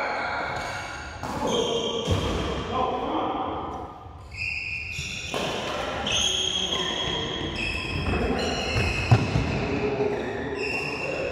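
Badminton doubles play: shoes squeaking on the court floor in short high squeals, with a few sharp racket hits on the shuttlecock, the loudest about nine seconds in.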